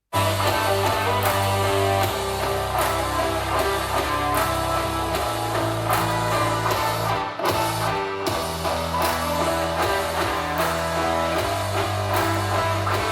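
Music with guitar and drums played back through a portable Bluetooth speaker for a sound test. It starts abruptly after a moment of silence.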